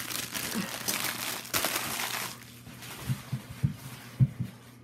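Clear plastic wrapping crinkling as it is handled for about two seconds, then a few short, soft knocks.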